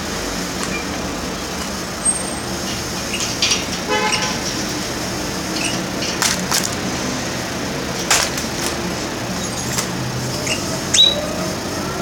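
Caged canaries giving a few short chirps and calls, one a quick rattling call about 4 s in and a falling chirp near the end, with a few sharp clicks in between, over a steady background hum of traffic.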